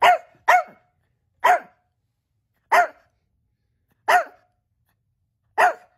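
Small dog barking: six short, high barks, the first two close together, then at slower, uneven gaps of a second or more.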